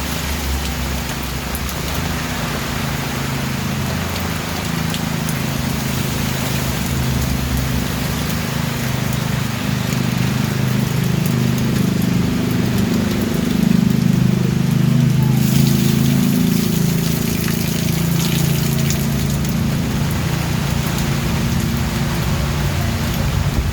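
Steady rain, an even hiss with scattered drop ticks, over a continuous low rumble that swells about halfway through.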